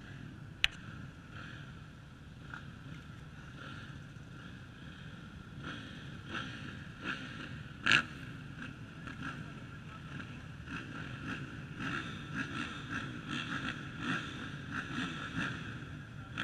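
A field of motocross bikes idling and revving at the start gate, the revs rising and falling and getting busier through the second half. A sharp click comes about half a second in, and a louder knock about eight seconds in.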